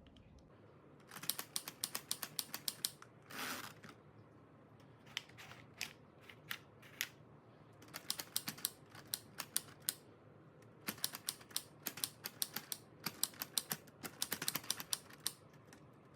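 Keys of a LEGO Ideas Typewriter (21327) brick model being struck, making quick runs of light plastic clacks that stop and start several times. A short sliding rasp comes about three and a half seconds in.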